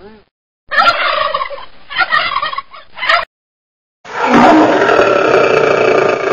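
Sound effects: a warbling, gobble-like call with a thin, tinny tone for about two and a half seconds. After a pause of about a second, a loud, long lion roar starts about four seconds in and is the loudest sound.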